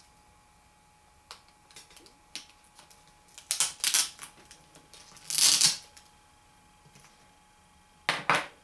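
A small flathead screwdriver working the laptop's LCD video-cable connector apart, with plastic clicks and scraping. There are a few faint clicks, then short scraping rasps; the loudest comes about halfway through and another near the end.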